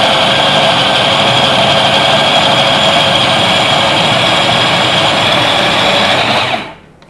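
Electric food processor running steadily, its blade grinding torn slices of bread into fine crumbs. The motor is switched off near the end and the sound dies away quickly.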